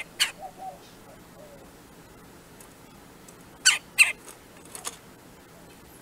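Red-bellied woodpecker at a wooden box feeder: short sharp taps and knocks, a pair right at the start, a louder pair about four seconds in and two lighter ones just after.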